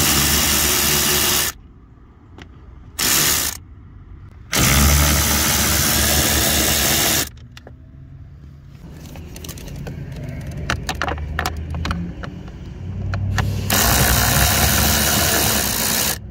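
Cordless electric ratchet running in four bursts (a short one, a brief blip, a run of nearly three seconds, and another near the end) as it backs out the 8 mm screws holding a car's blower motor. Light clicks and rattles from the tool and screws come in between the runs.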